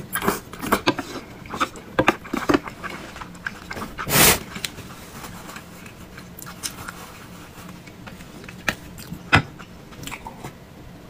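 Close-miked eating: mouth sounds of chewing and biting noodles and meatballs, with many short wet clicks and smacks, busiest in the first few seconds and sparser later. A short, louder rush of noise comes about four seconds in.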